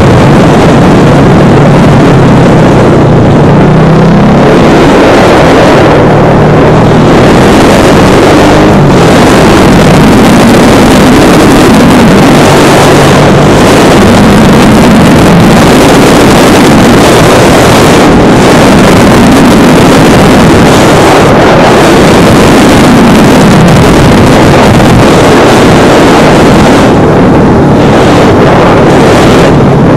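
Husqvarna Vitpilen 701's single-cylinder engine running under way, its revs rising and falling repeatedly through the bends, with wind rushing over the microphone. Loud throughout.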